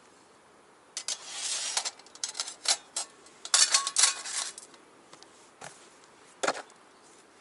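Thin stainless-steel panels and parts of a folding box stove clattering and clinking as they are handled, in a run of short scrapes and knocks. There is a brief metallic ring about halfway through and a single knock near the end.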